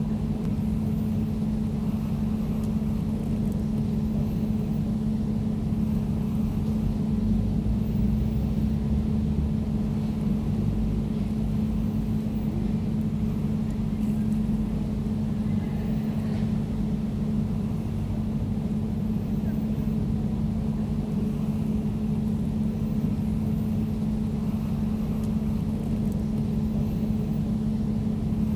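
Air conditioner running steadily: an even low hum with a constant tone over a soft rushing rumble.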